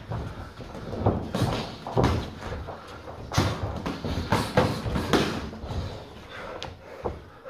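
Boxing gloves thudding on gloves and headgear as two boxers trade punches while sparring, in quick clusters of blows. The blows are thickest in the middle and thin out near the end.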